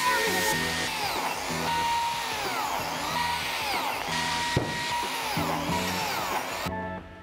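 Handheld biscuit joiner running with a steady whine while cutting biscuit slots into the edge of oak boards; it stops near the end.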